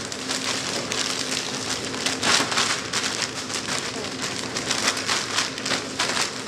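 Clear plastic bag full of diced mango crinkling and rustling as hands squeeze and press it, with a louder crinkle about two seconds in.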